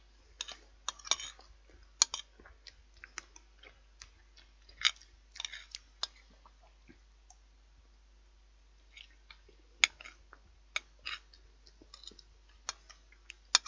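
A person eating a crêpe: irregular sharp clicks of cutlery against a plate and short scraping sounds, with chewing between them. There is a quieter pause in the middle.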